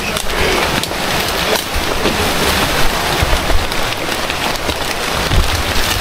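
Steady, loud hiss of a river running over rocks, with a few low bumps now and then.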